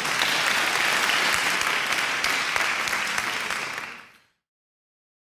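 Applause, many hands clapping, fading out about four seconds in.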